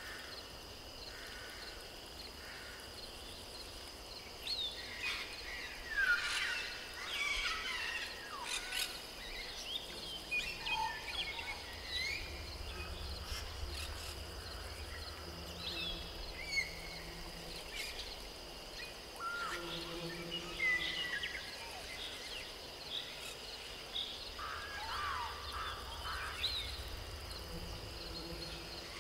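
Nature ambience: many short bird chirps and whistles over a steady high-pitched insect drone.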